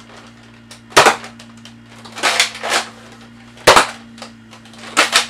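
Nerf Modulus Recon MK II spring blaster firing foam darts: two sharp shots, about a second in and near four seconds. Each shot is followed by a double clack as the slide is pulled back and pushed forward to prime it again.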